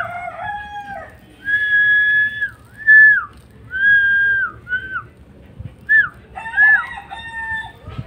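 Young rose-ringed parakeet calling: a series of drawn-out high calls, each held steady and then dropping sharply in pitch at the end.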